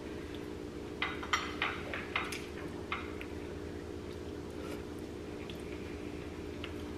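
Metal spoons clicking and scraping against balut eggshells and dishes while eating, with a quick cluster of clinks between one and three seconds in and a few scattered ones later. A steady low hum runs underneath.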